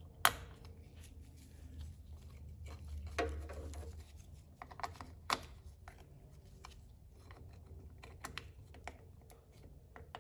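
Sharp clicks and light rustling as gloved hands handle the small rocker switch and its mounting plate on a drill press head. The loudest click comes just after the start, with others about three and five seconds in; a faint low hum runs underneath.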